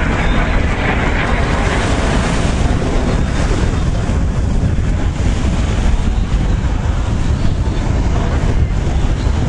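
Wind buffeting the microphone: a loud, steady low rumble, with a rushing hiss in the first few seconds that fades away.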